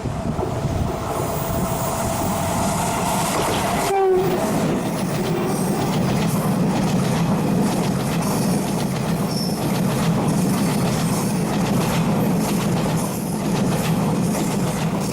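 A Taiwan Railways train passing close by. A steady horn sounds for the first few seconds and breaks off about four seconds in, then a steady rolling rumble of wheels over rail joints continues.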